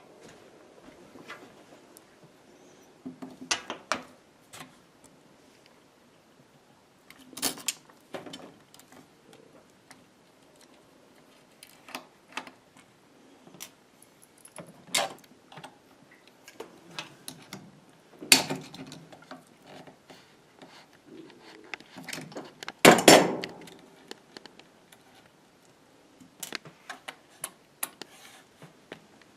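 Scattered clicks, taps and knocks of a screwdriver, screws and hands on a laptop's plastic case while its bottom panel is worked on, the loudest knocks coming about 18 and 23 seconds in.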